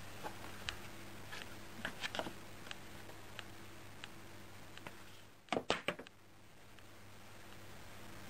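Scattered light taps and clicks as a calico cat paws at plastic DVD cases on a shelf. The loudest moment is a short cluster of sharper clicks about five and a half seconds in.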